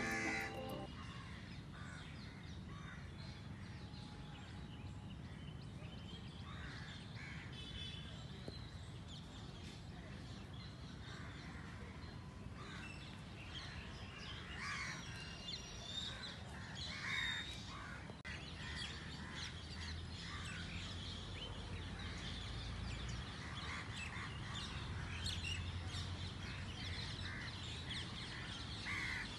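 Crows cawing now and then and other birds chirping, over a steady low rumble of outdoor background noise.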